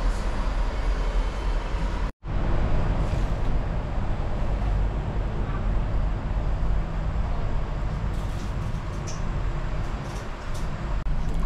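Steady background ambience with a low rumble. It cuts out for an instant about two seconds in, and a few faint ticks come near the end.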